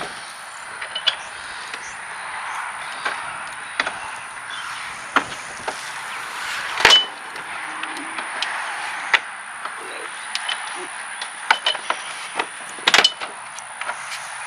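Small metal clicks and knocks, scattered and irregular, as screws and fittings are worked back into a golf cart's steel seat bracket by hand, over a steady hiss. The loudest knock comes about halfway through, another near the end.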